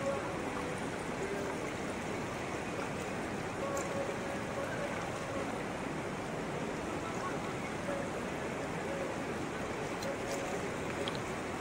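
Steady rush of a fast mountain river flowing around boulders.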